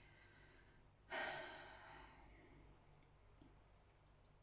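One breath out, like a sigh, about a second in, fading over about a second; otherwise near silence with a faint tick later on.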